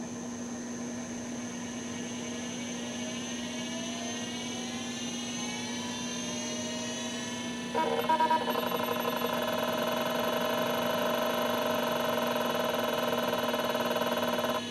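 Seagate ST-251-1 5.25-inch hard drive spinning up: its whine rises steadily in pitch for about seven seconds. About eight seconds in, a short burst of head-seek chatter sounds, which is a good sign that the drive is working. It then runs at speed with a steady, louder whine, the spindle bearing a little noisy with age.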